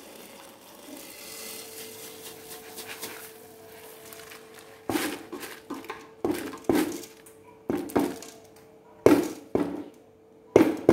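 Washed rice sliding out of a woven bamboo basket into an aluminium pot of water, a soft uneven rustle. From about halfway on, the upturned basket is knocked against the pot about nine times in uneven succession to shake out the last grains.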